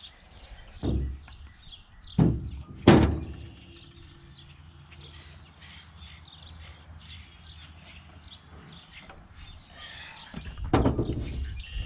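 Three knocks of parts and tools being handled while an excavator's swing brake is worked on, the third and loudest about three seconds in, then a burst of clattering near the end. Birds chirp throughout.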